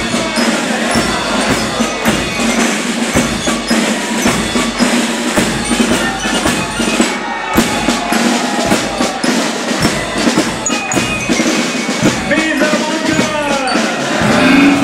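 Marching band playing for a carnival march-in: a steady drum beat with high ringing notes on top.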